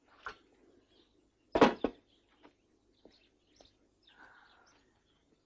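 A sharp double knock about one and a half seconds in, amid scattered small clicks and faint, brief bird chirps.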